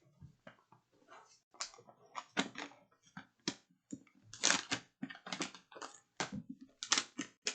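Cardboard packaging of an advent calendar gift being pried and torn open: a quick, irregular run of crackles and clicks.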